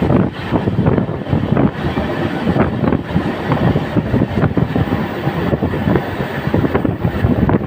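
Running noise of an LHB passenger coach under way: a steady rumble of wheels on rail with irregular clattering knocks.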